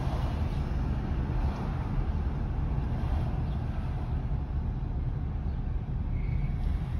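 Steady low rumble of a car driving slowly in traffic, heard from inside the cabin.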